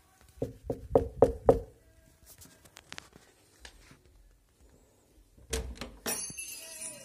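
Knocking on a door: about five quick knocks in a row. About five and a half seconds in there is a softer thud and a rustling.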